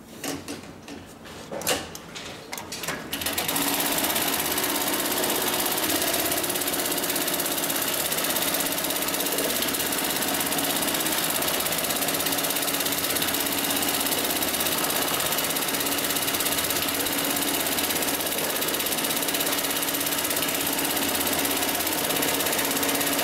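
HighTex MLK600-3020 heavy-duty automatic pattern sewing machine starting about three seconds in and running steadily at high speed, stitching polyester cargo-strap webbing held in its clamp. Before it starts there are a few separate clicks and knocks.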